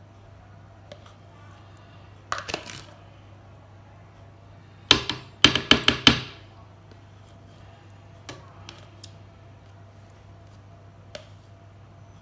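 A metal spoon tapping and scraping on plastic while ricotta cheese is spooned into a blender jar: a couple of clicks, then a quick run of about six sharp taps about five seconds in, then a few faint ticks.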